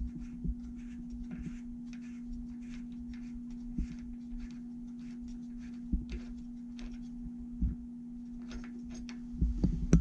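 A few light clicks and knocks as a spark plug on a socket extension is handled around a small lawn-tractor engine, over a steady low hum.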